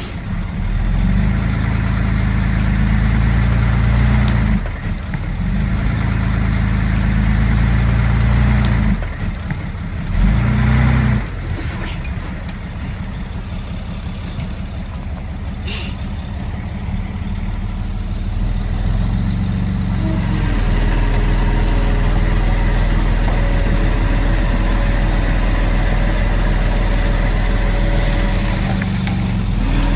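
Heavy diesel engine of earthmoving equipment running under changing load, its note dipping and shifting several times before settling into a steadier run in the second half.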